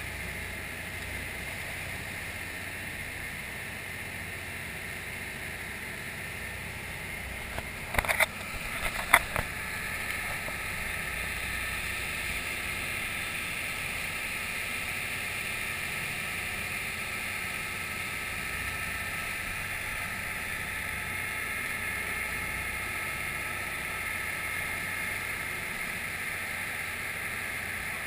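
Boat under way through choppy water: a steady rush of water along the hull and wind. A few sharp knocks about eight and nine seconds in as the camera on the rail is handled.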